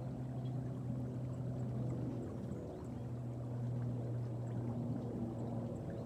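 Low, steady engine hum from a distant motor, dipping briefly about halfway through before carrying on.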